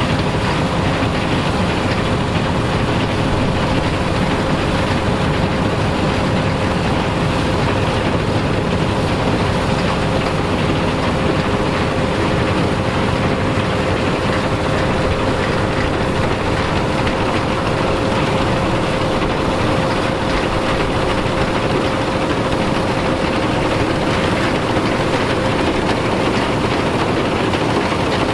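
Vintage farm machinery running steadily at constant speed, a heavy engine noise with a steady whine on top.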